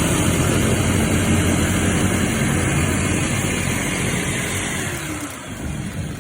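A machine running loudly with a steady hiss and low hum, then winding down with falling pitch near the end.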